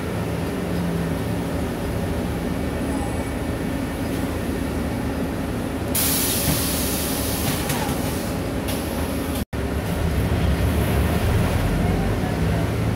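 Steady low engine and road noise heard from inside a moving city bus. About six seconds in, a loud hiss starts suddenly and lasts a couple of seconds; after a split-second dropout the low noise runs louder.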